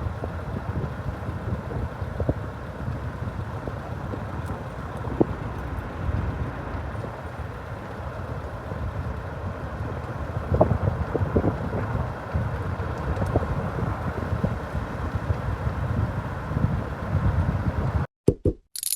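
Steady low rumbling noise with a few faint light knocks, which cuts off suddenly near the end.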